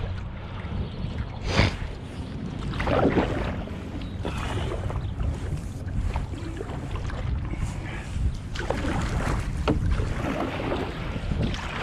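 Wind rumbling on the microphone of a canoe being paddled, with a few short sharp knocks and splashes from the paddle.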